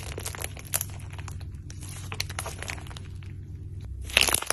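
Slime being squished and poked, with many quick sticky clicks and crackles, and a louder run of crackling near the end.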